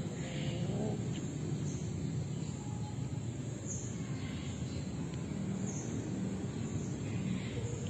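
Steady low background rumble, with a cat's drawn-out mating yowl bending in pitch and trailing off within the first second.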